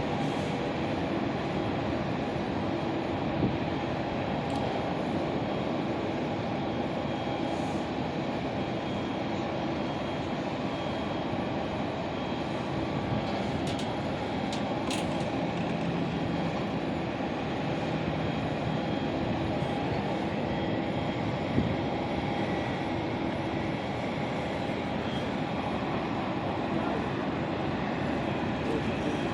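Aeroplane engine and airflow noise holding at a steady level, an even wash of noise with a few faint steady tones and the odd small click.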